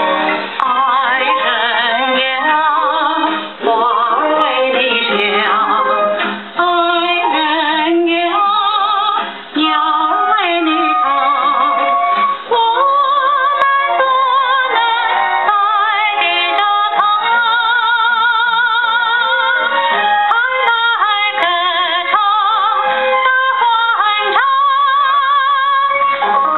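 A 78 rpm record playing a 1950s Chinese popular song: a woman sings with a quick vibrato over a small orchestra. The sound is narrow and thin, with no deep bass and no treble, as it comes through the grille of a wooden cabinet phonograph.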